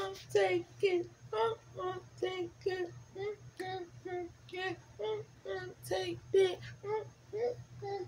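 A woman singing in short, evenly spaced notes, about two a second, over a faint steady low hum.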